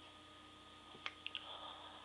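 Faint breath and nose sounds from a person: about a second in, a sharp click and two quick smaller clicks, then a brief hissing breath through the nose.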